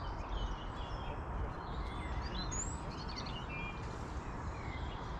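Several small birds chirping and singing in short rising and falling calls, over a steady low rumble.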